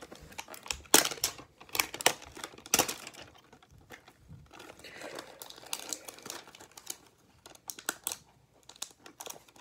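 Clear plastic wrap being crinkled and torn off a box of baseball cards by hand: irregular sharp crackles, loudest in the first three seconds and again near the end, with softer rustling in between.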